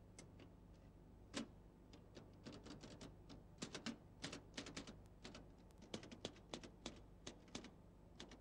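Keys of a Consul portable typewriter being struck at an uneven pace: a few single clacks, one of them loudest about a second and a half in, then quicker runs of keystrokes from about two and a half seconds in.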